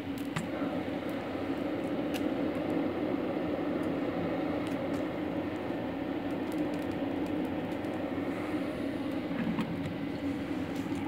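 Electric combustion-air blower of a pellet burner running steadily, a constant whir with a low hum that swells over the first second and then holds.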